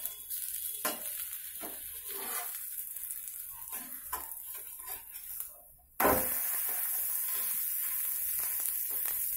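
Spatula scraping and tapping on a flat tawa as the wheat ada cooks, with a faint sizzle; about six seconds in, a steady louder sizzle of the batter frying cuts in abruptly.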